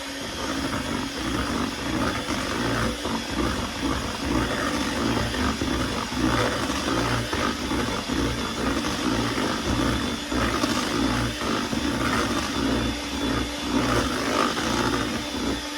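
Electric mixer running at a steady speed, its beaters churning a thick pudding and whipped-topping mixture in a bowl with a constant rattle.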